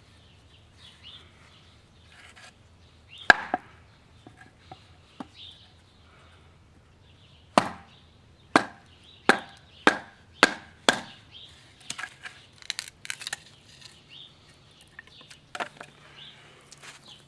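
Wooden baton striking the spine of a survival knife, driving the blade down through an upright piece of 2x4 to split it (batoning). One hard strike about three seconds in, then a run of six quick strikes under a second apart, followed by lighter knocks.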